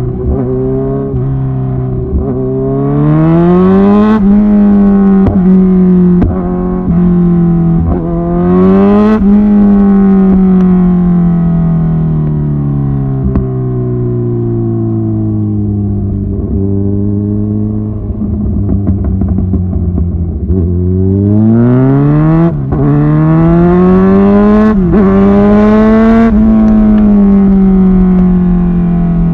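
Kawasaki Ninja 1000SX inline-four through Lextek headers and an Austin Racing end can: the revs climb, then fall slowly, then climb again in two long rises and falls. Sharp pops and cracks from the exhaust are scattered throughout.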